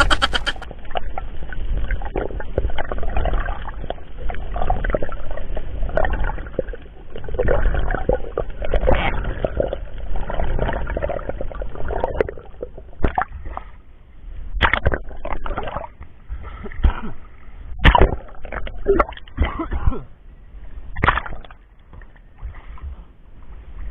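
Muffled underwater sloshing and gurgling around a diving camera's waterproof housing as the diver swims. The noise swells and fades unevenly, with a few sharp knocks in the second half.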